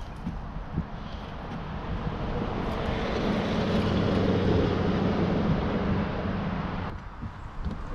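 A steady engine drone that swells over the first few seconds, holds, then drops away suddenly about seven seconds in.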